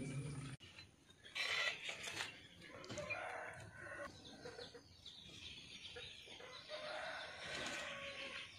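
Chickens clucking, faint and on and off.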